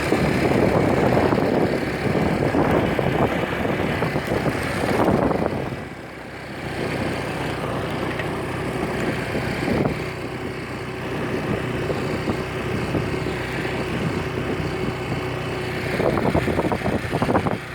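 A motor vehicle's engine running steadily with road and wind noise, dipping briefly about six seconds in.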